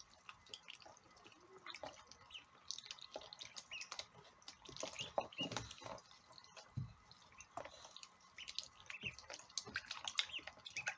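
Ducklings dabbling in their water and food, with faint irregular drips, splashes and pecking clicks, and a few short high peeps.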